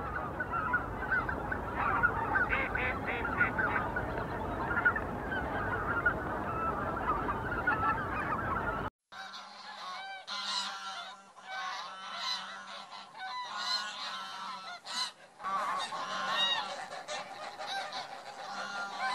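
A large flock of geese honking in a dense, continuous chorus. About nine seconds in, the sound cuts to sparser, clearer single honks from geese on the water.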